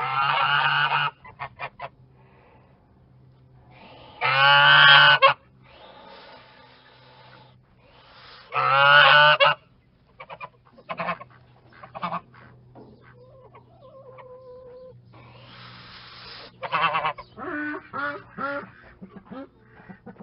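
Geese honking: three long, loud bouts of calls about four seconds apart, then a run of shorter calls in the second half, over a steady low hum.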